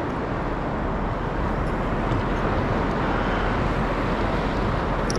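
Steady rushing wind noise on the microphone over open water, even and unbroken.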